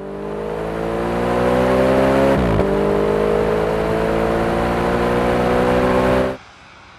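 Audi RS5's 4.2-litre V8 accelerating hard, its note rising steadily, with one quick upshift about two and a half seconds in before it climbs again. The engine sound cuts off abruptly about six seconds in, leaving a much quieter steady sound.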